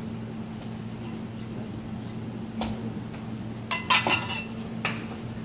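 A metal spoon clinking against dishes: a single click, then a quick cluster of ringing clinks about four seconds in, and one more click shortly after, over a steady low hum.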